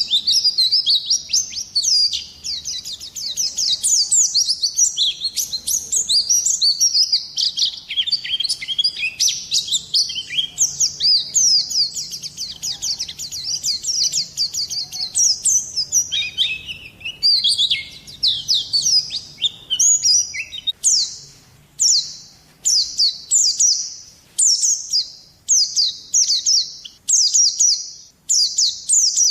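Small songbird singing high-pitched chirps and rapid trills, of the kind used as 'masteran' tutor song for caged songbirds. About two-thirds of the way through, the song changes to a steady series of separate downward-sweeping notes, a little more than one a second.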